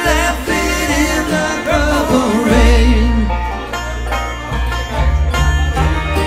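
Electric guitar playing a lead solo with bent, wavering notes over a computer backing track with a deep bass line.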